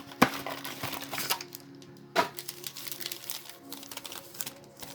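Packaging of a trading-card booster box, plastic wrap and cardboard, crinkling and clicking as it is opened and handled, with the sharpest clicks about a quarter second in and about two seconds in. Soft background music plays underneath.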